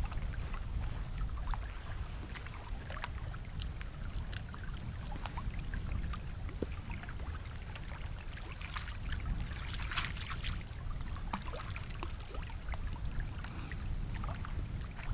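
Small waves lapping and trickling against the rocky shore of a lake, with a low wind rumble on the microphone. There is a brief louder splash of water about ten seconds in.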